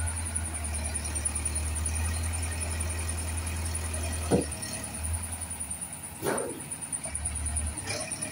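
Agrimac 926 wheel loader's diesel engine running with a steady low rumble that eases off in the second half. Three short, sharp sounds come over it, about two seconds apart.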